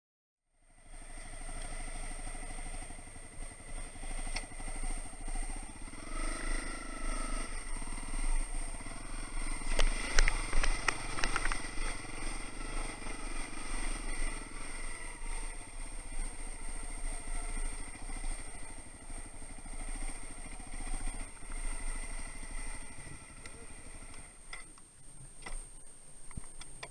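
Dirt bike engine running as the bike rides a rough dirt track, with loud rattling over bumps around ten to twelve seconds in. Near the end the engine sound thins out as the bike comes to a stop.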